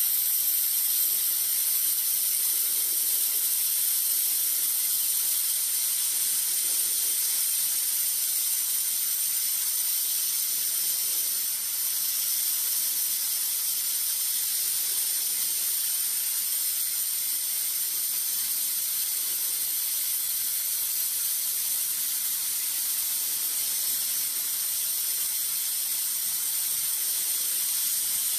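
TIG welding arc running steadily on thin-wall stainless steel tube, an even, continuous hiss as the butt weld is fused without filler wire.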